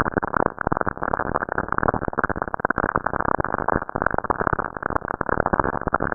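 Radio emissions from lightning on Saturn, picked up by the Cassini spacecraft and played as sound: dense, muffled crackling static, thick with fast irregular clicks.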